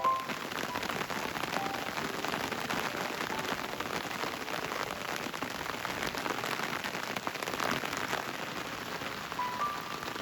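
Heavy rain falling steadily, a dense hiss of many small drop ticks. A few soft piano notes sound right at the start and again near the end.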